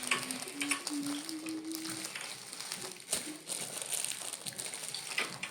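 Close-miked eating sounds: chewing and mouth clicks with some crinkly crackling, in scattered sharp ticks.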